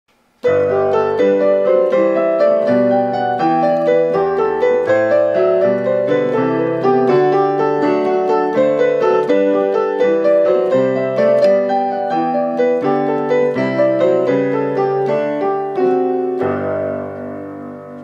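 Piano music: a steady flow of notes, ending on a held chord that dies away near the end.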